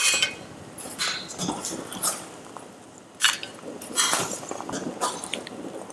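Slotted stainless-steel spoon clinking and knocking against a steel pot and a metal tray as boiled mantis shrimp are lifted out and set down, roughly one knock a second, over the hiss of water boiling hard.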